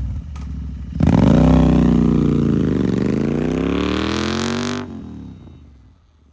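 Royal Enfield Interceptor 650's parallel-twin engine through an aftermarket Red Rooster exhaust, running quietly and then revved hard about a second in. The pitch rises, dips and rises again for a few seconds, then the sound cuts off sharply and fades.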